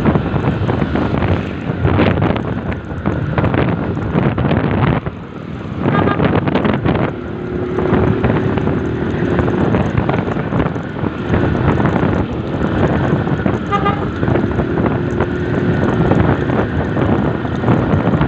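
Wind rushing over the microphone of a motorcycle moving at speed, mixed with engine and road noise. A held pitched tone comes and goes twice.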